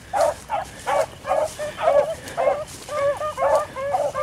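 A pack of beagles baying: quick, repeated short bawls from several hounds overlapping, a few calls a second. The hounds are giving tongue as they run a rabbit's track.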